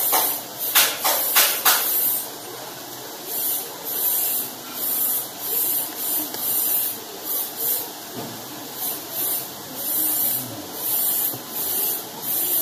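A person chewing a bean-sprout spring roll close to the microphone: wet, hissy mouth smacks about one and a half times a second. There are a few sharp clicks in the first two seconds.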